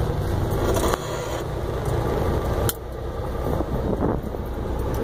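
Semi truck's diesel engine running at low speed, a steady low rumble heard inside the cab in stop-and-go traffic, with a single sharp click a little over halfway.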